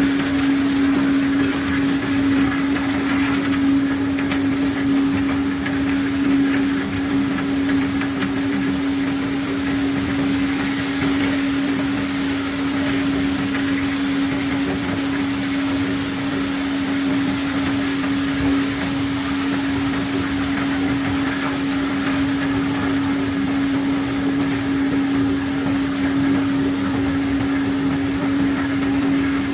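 Engine-driven unloading machinery on a sand ship running steadily, a constant hum at one pitch, with a rough rushing noise over it as the pebble cargo is moved.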